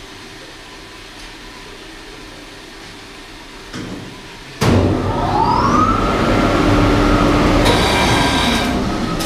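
A steady machine hum, then about halfway through a large electric fire pump starts suddenly and loudly, its whine rising in pitch as the motor spins up and then holding steady. This is the standby pump cutting in on its own, the sign that the pump station's automatic control is working.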